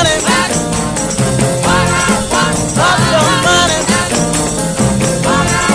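A 1960s-style soul/R&B record playing: singing over a steady beat with jingling percussion such as a tambourine.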